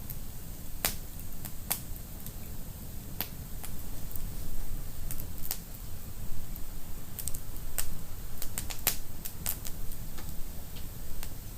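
Wood fire burning in a fireplace: sharp, irregular crackles and pops over a low, steady rumble of the flames, with a quicker run of pops late on.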